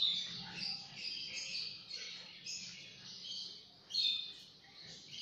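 Many small birds chirping at once, a busy run of short overlapping high chirps, loudest right at the start and again about four seconds in.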